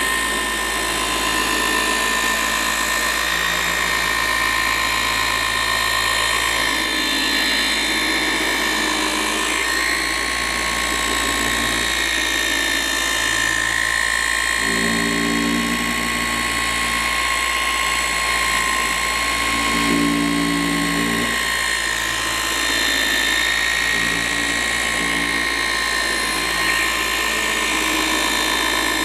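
Electric car-paint machine polisher running at high speed with a steady high-pitched whine as its pad works polish into a painted panel to cut and refine defects. A lower droning swells a couple of times around the middle.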